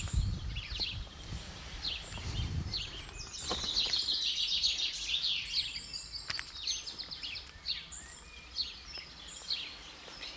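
Songbirds singing, many short high chirps and trills, with a dense bout of song from about three and a half to six seconds in. Low rustling and thuds in the first few seconds as a person steps over a wooden fence.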